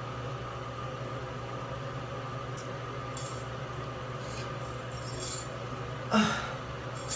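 Quiet room tone with a steady low hum, broken by a few faint, brief noises about three, five, six and seven seconds in.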